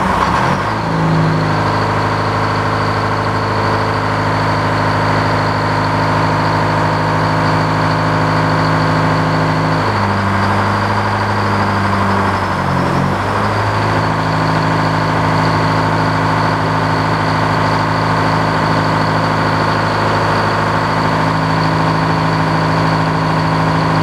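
The sawmill's old power-unit engine, just started, running steadily. About ten seconds in its note dips and wavers for a few seconds, then settles back to a steady run.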